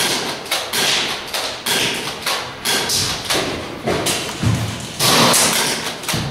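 An irregular run of sharp knocks and thuds, about two or three a second, with a longer, louder burst about five seconds in.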